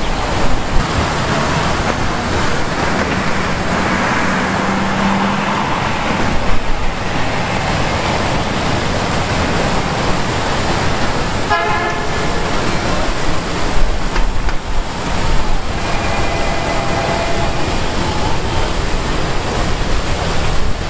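Steady rush of a large two-tiered fountain's splashing water mixed with downtown traffic, with brief vehicle horn toots over it.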